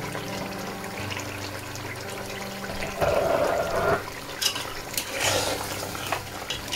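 Thick curry gravy bubbling in an aluminium pot on a gas flame. In the second half a metal ladle stirs it, clinking against the pot a few times.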